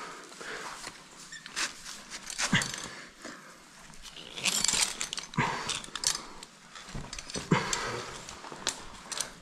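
A caver breathing hard with effort while climbing out at the top of a rope ascent, with a few sharp knocks and scrapes of gear and boots on muddy rock.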